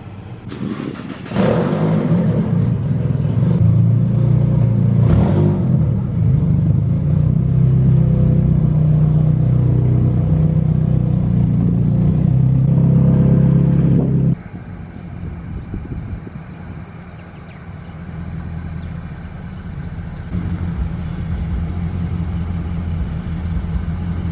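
Nissan 240SX's turbocharged SR20DET four-cylinder engine running with an exhaust leak at the turbo manifold gasket. It runs loud and steady for about thirteen seconds, then drops suddenly to a much quieter steady run.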